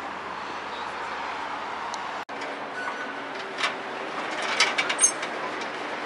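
Steady street traffic noise, with a cluster of sharp metallic knocks and clanks about four to five seconds in as someone climbs down off a rusty steel scrap-metal sculpture.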